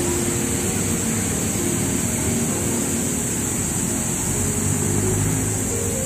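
Background music, a few sparse held notes, over a steady rushing noise.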